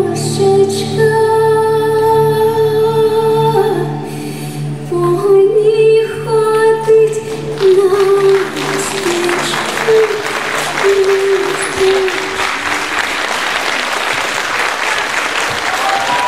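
Female voices singing a Ukrainian folk song over a low held drone; the music ends about twelve seconds in. Audience applause starts about eight seconds in and continues.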